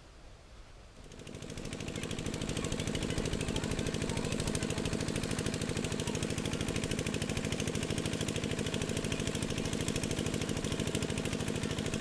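An engine running steadily with a fast, even chugging beat, fading in about a second in.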